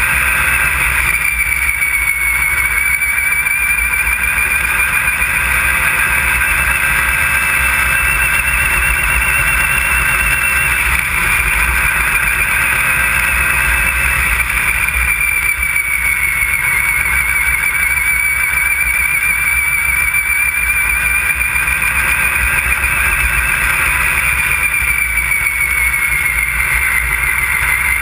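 Yamaha Nytro snowmobile's four-stroke three-cylinder engine running hard at trail speed: a steady high engine whine whose pitch rises and falls slowly with the throttle, dipping near the end. Heavy wind rumble on the microphone.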